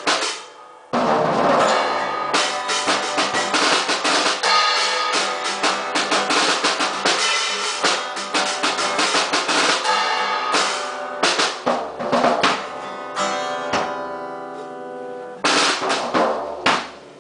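Rogers drum kit and strummed acoustic guitar playing a song together, with snare and bass drum hits under the chords. The playing breaks off briefly about a second in, then thins to scattered hits near the end before stopping.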